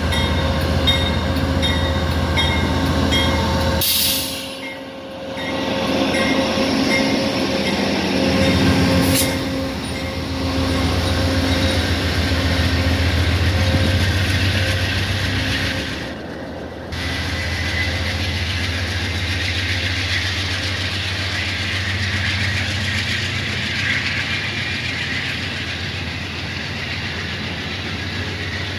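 Amtrak passenger train passing close by: a steady rolling rumble with wheels clattering over the track. The level dips briefly twice.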